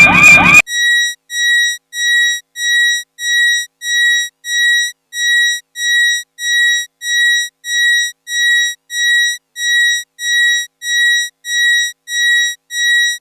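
Electronic beeper sounding the same high, buzzy beep over and over, about one and a half beeps a second, like an alarm clock.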